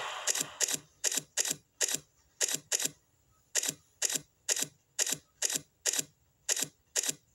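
A rapid string of short, sharp clicks, about three a second and sometimes in close pairs, with quiet between them.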